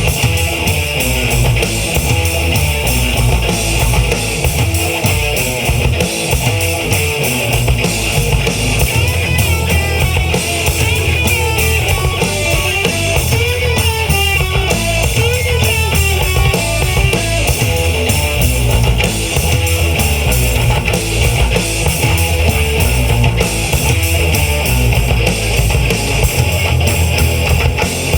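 Live rock band playing: electric guitars over bass guitar and drums at a steady loud level, with a wavering melodic line rising above the band in the middle.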